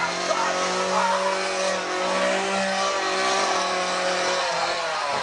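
Two-stroke chainsaw running at a steady high engine speed, with a sharp buzz.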